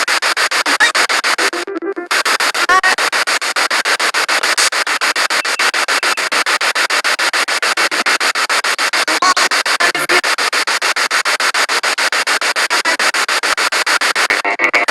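Spirit box radio sweeping rapidly through stations. Loud static is chopped into a fast, even stutter, with fleeting snatches of broadcast sound. It drops out briefly about two seconds in and again near the end.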